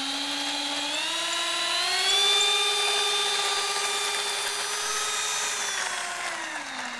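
Radio-controlled model Learjet 45's ducted-fan motor whining as the jet taxis. The pitch rises about a second in, holds steady, then winds down near the end.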